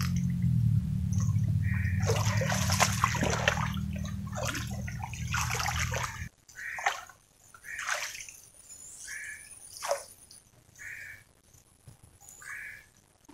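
Hands splashing and sloshing in shallow, muddy ditch water while a wire-mesh fish trap is set, with splashes coming further apart in the second half. A low steady hum runs under the first half and cuts off suddenly about six seconds in.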